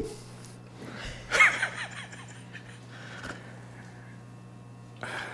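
A man's sharp gasp about a second and a half in, and a fainter breath near the end, over a steady low hum: a patient reacting during a chiropractic adjustment.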